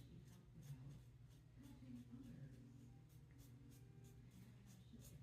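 Feather Popular double-edge safety razor with a Shark blade scraping through lathered stubble in short, faint strokes, about two to three a second.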